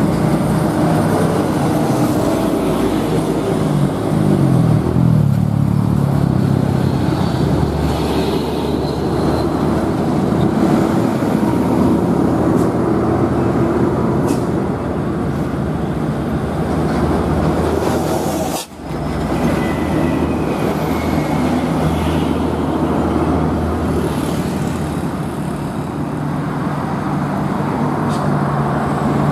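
Heavy diesel trucks driving past in a convoy, their engines running with a steady low drone. The engine pitch bends up and down about five seconds in. The sound drops out for a moment about two-thirds of the way through.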